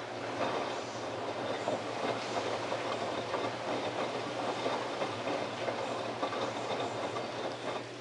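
LG WD12596 front-loading washing machine's drum turning during a rinse: a steady churning of wet clothes and water with irregular clatter over a low motor hum. It dies down near the end as the drum stops.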